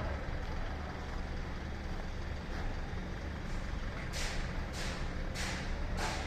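Heavy machinery drones steadily at a low pitch. From about four seconds in, it is joined by a run of short hissing strokes, roughly two a second.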